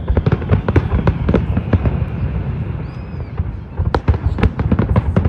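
Fireworks going off in quick succession: a dense stream of sharp bangs and crackles, many a second, over a low rumble.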